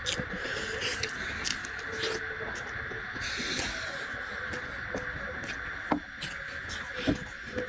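Mukbang eating sounds: chewing, with scattered sharp clicks and taps of eating on a plate and a brief scrape about halfway through, over a steady high hum.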